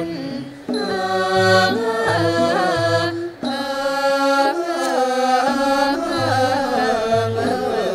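Male chorus singing a Thai royal tribute song in unison, the voices holding long notes and sliding between them, with a brief break between phrases about three seconds in. Under them a Thai classical ensemble plays, with regular low drum beats.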